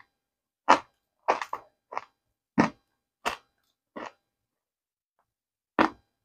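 Crunchy chunks of dry cornstarch being bitten and chewed: a series of short, sharp crunches, about eight in all, with a pause of nearly two seconds before the last one.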